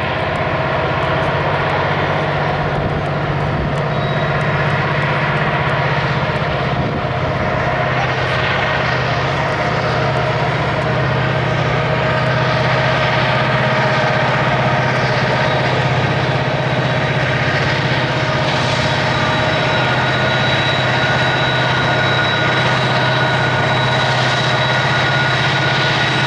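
Norfolk Southern EMD SD70ACC and SD70ACE diesel-electric locomotives pulling hard up the grade, a steady deep engine drone with a high whine over it, growing slightly louder as they approach.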